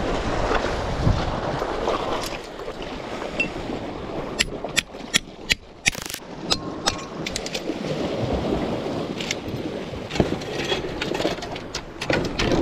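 Sea waves washing against a rocky shore, with wind on the microphone. A run of sharp clicks and knocks comes about halfway through and again near the end.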